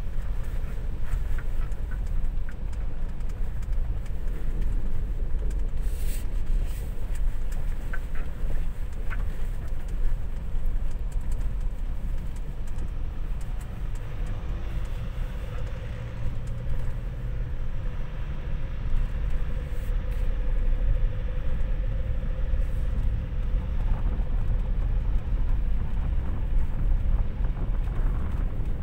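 Ford Ranger FX4 Max pickup driving off-road: a steady low rumble of engine and tyres with scattered knocks and rattles. A faint steady hum joins in about halfway through.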